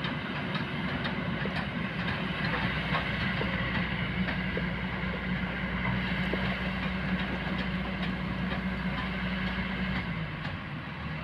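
Kobelco hydraulic excavator's diesel engine running steadily, with scattered light clicks and knocks. The engine note drops slightly near the end.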